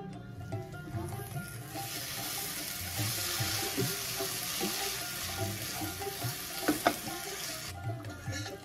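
Onion-and-spice masala sizzling in a frying pan as it is stirred with a spatula. The sizzle starts about two seconds in and cuts off shortly before the end, with a couple of sharp clicks near the end. Background sitar-and-tabla music plays underneath.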